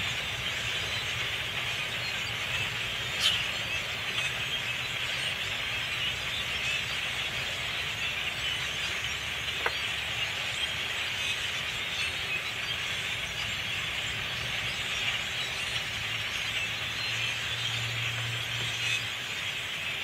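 A huge swarming flock of small dark birds calling all at once, a dense, steady wash of high chatter. A couple of single sharper notes stand out, one about three seconds in and one near the middle.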